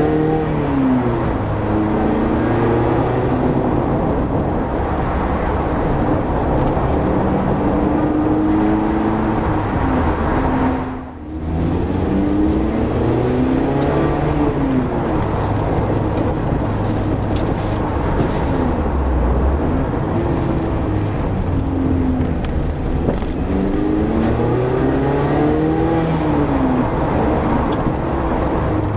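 Mazda MX-5 ND's four-cylinder engine heard through an Ulter-Sport centre-exit sports exhaust with its bypass valve closed, picked up from behind the rear bumper while driving. The revs repeatedly rise and fall over road noise. The sound briefly drops away about eleven seconds in.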